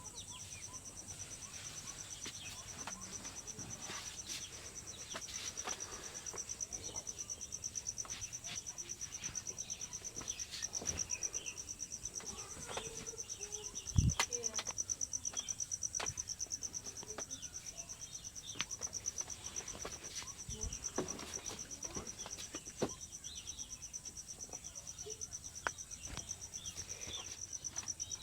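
Insects trilling steadily at a high pitch, with scattered light taps and clicks and a single thump about halfway through.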